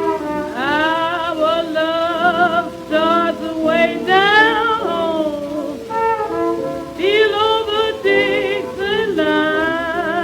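A 1920s small jazz band plays the instrumental introduction of a blues from a 78 rpm record. A lead horn or reed plays the melody with a wide vibrato and scooping upward slides over a steady accompaniment. The sound has the narrow, top-cut sound of an old shellac disc.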